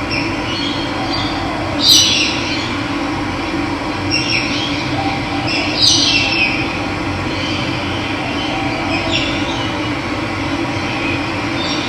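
Steady rush of running water with birds calling over it: a few short calls that fall in pitch, the loudest about two seconds and six seconds in.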